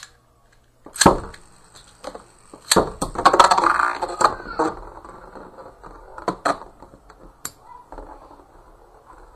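Two metal-wheeled Beyblade spinning tops (Spiral Lyre ED145MF and Grand Cetus WD145RS) launched into a plastic stadium: a sharp snap about a second in, then a loud rattling, whirring stretch as they spin and clash, followed by a few sharp clacks of the tops striking each other.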